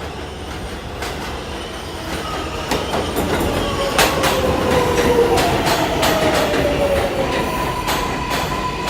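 Train passing, with a low rumble that swells towards the middle, sharp clacks, and wheels squealing in slowly falling tones.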